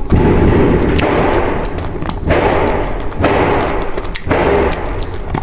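Loud background music with a heavy thudding beat about once a second over a deep, steady low drone.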